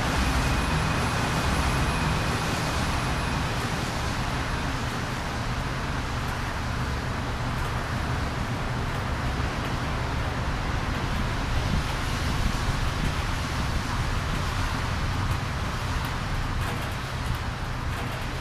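Steady background noise: a broad hiss over a low hum, with no distinct events.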